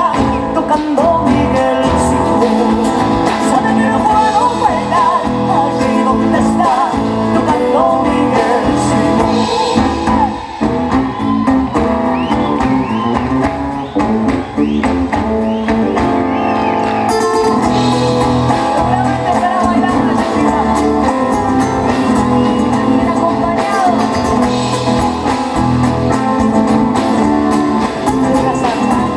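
Live concert music: a woman singing into a microphone over a band with guitar, loud and continuous.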